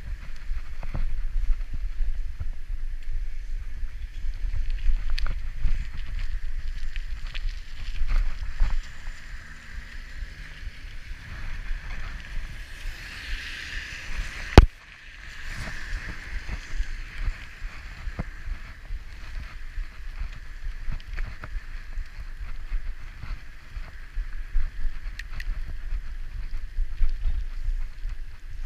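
Wind buffeting the microphone during a bicycle ride, with a low rumble and many small clicks and rattles from the bike over a rough surface. About midway a hiss of tyres on wet road swells and fades, and a single sharp click near the middle is the loudest sound.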